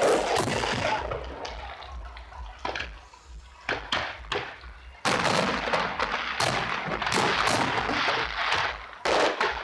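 Aerial fireworks exploding, a dense run of crackling bursts. The crackle thins out after about a second to a few separate bangs, then a loud burst starts suddenly about five seconds in and keeps crackling, with another sharp rise near the end.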